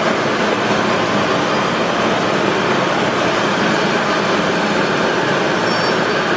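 A 160-ton hydraulic scrap metal baler running, making a steady mechanical din.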